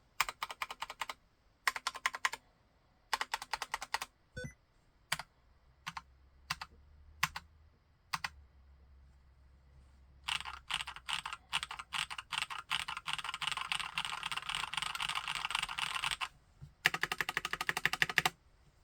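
Keychron C1 tenkeyless mechanical keyboard with Gateron Brown tactile switches being typed on. It starts with short bursts of keystrokes and a few single key presses, then a long run of fast continuous typing and a final quick burst near the end.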